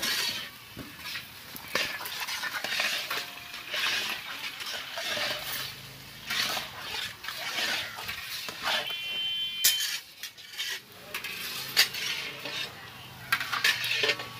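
Long-handled metal spatula scraping and knocking against a large iron kadai while stirring sliced tomatoes, in irregular strokes.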